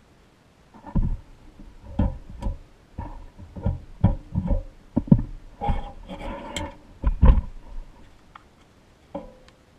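Vintage Tonka pressed-steel toy fire truck being handled as its rubber wheels and axle are pulled off: a string of knocks and clunks, some leaving a short metallic ring. There is a scraping rattle about six seconds in.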